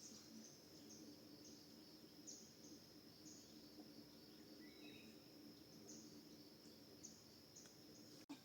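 Faint insect ambience: a steady high-pitched insect drone with short chirps repeating roughly once a second.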